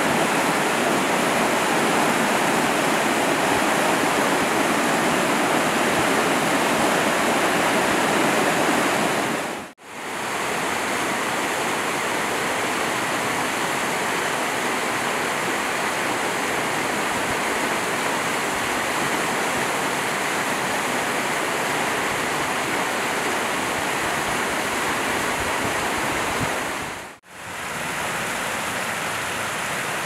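Mountain stream running over rocks and shallow rapids, a steady rush of water. It fades out and back in briefly twice, about ten seconds in and near the end.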